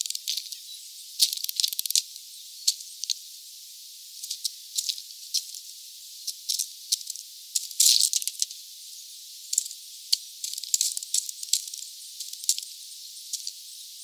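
Birds at a bird feeder: irregular sharp clicks and short rattles from pecking and seed, with a denser, louder cluster about halfway through.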